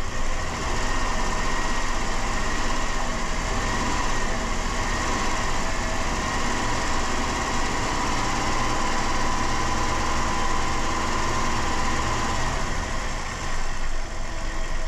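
A Dodge Caravan's 3.3-litre V6 running steadily while a liquid cleaner is drawn into the intake through a vacuum line to clean out carbon.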